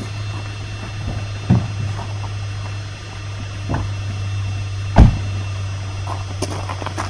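A steady low hum with a few knocks and thumps, the loudest about five seconds in.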